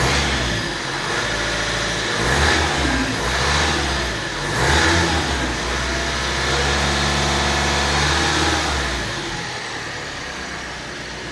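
Vauxhall Astra K's 1.6 CDTi diesel engine being blipped a few times, then held at higher revs for a few seconds before dropping back to idle near the end. Its timing chain rattles, which the mechanic blames on a faulty tensioner design common to these engines.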